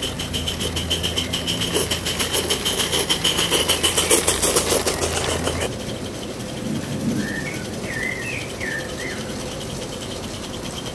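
Coal-fired 16 mm live-steam Riverdale locomotive running slowly, with rapid even exhaust beats and steam hiss that grow louder as it comes close and then cut off abruptly a little past halfway. After that, a bird sings a few short chirps over quieter background.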